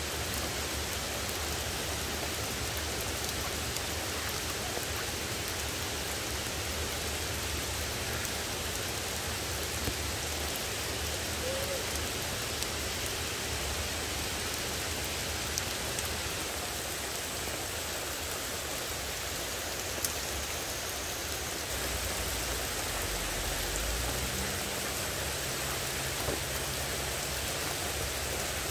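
Heavy rain pouring steadily, a dense even hiss of drops on wet pavement and foliage.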